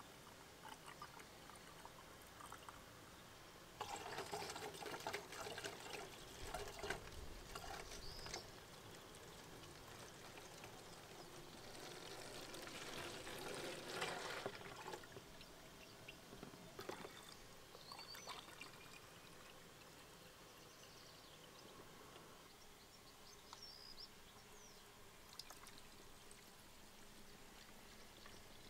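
Liquid poured from a plastic jug into plastic bottles, in two pours. The first starts about four seconds in and lasts about four seconds. The second, into a bottle already holding pink coolant, grows louder and stops about fifteen seconds in.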